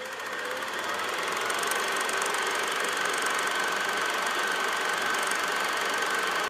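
Film projector running: a steady mechanical whirr with a fine rapid clatter and a high whine. It swells over the first second, then cuts off suddenly at the end.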